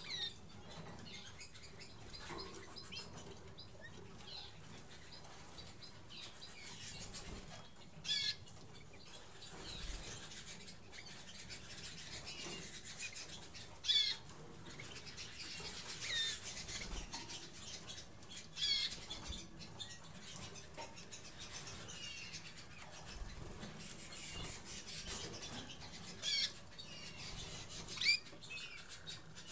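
Harzer Roller canaries giving short, high chirping calls every few seconds, with soft wing flutters as they hop about the cage.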